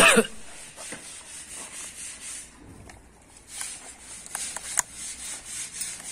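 Faint rubbing with a few short, light knocks and clicks, as cast facade tiles are handled and fitted against one another.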